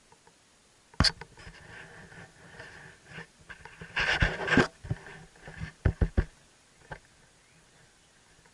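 Helmet camera and its mount being knocked and handled: a sharp knock about a second in, a hand rubbing over the camera around four seconds, then a quick run of taps and one more knock near seven seconds.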